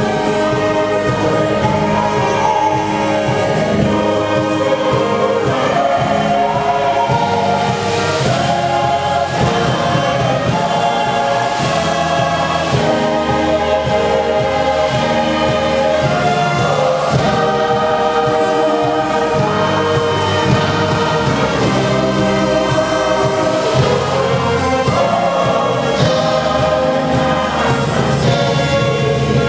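Choir singing a sacred song with orchestral accompaniment, in a steady, full sound with sustained chords.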